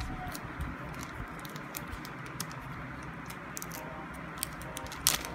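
Clear plastic packaging bag crinkling and crackling in irregular small bursts as fingers handle it and pull it open, with one sharp, louder crackle near the end.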